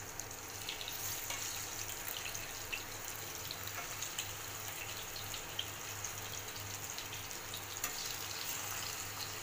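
Fish steaks shallow-frying in oil in a non-stick pan: a steady sizzle with scattered small pops and crackles.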